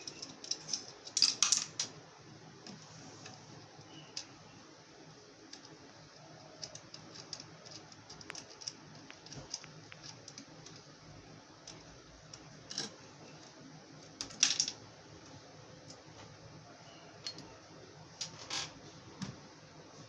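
Small hard parts being handled: scattered clicks and light rattles, with a few louder clattering bursts, the loudest about a second in and again past the middle.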